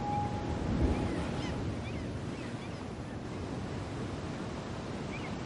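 Steady outdoor ambience of sea surf and wind, with a few faint short high chirps. A held musical note dies away in the first half-second.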